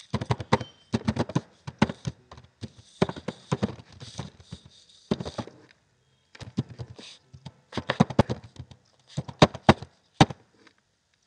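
Computer keyboard typing in quick runs of key clicks, with a break of about a second near the middle.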